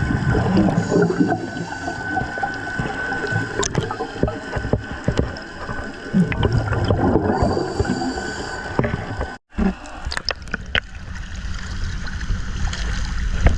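Noisy rush and gurgle of water with scattered clicks, as picked up by an action camera at sea. It drops out abruptly about nine and a half seconds in, then resumes as a lower, steadier rumble.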